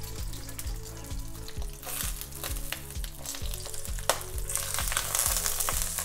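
Fried eggs sizzling in hot oil in a wok as their bottoms crisp, then a metal spatula scraping under them and clacking against the wok about four seconds in as they are lifted out. Background music with a steady beat plays underneath.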